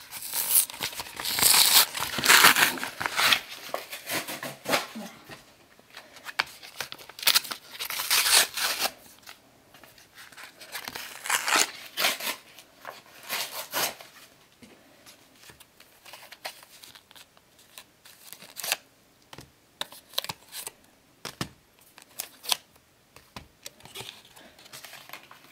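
A cardboard-backed plastic blister pack being torn open by hand: repeated bursts of ripping cardboard and crinkling plastic, loudest in the first few seconds and again around eight and twelve seconds in, then quieter crinkles and small taps.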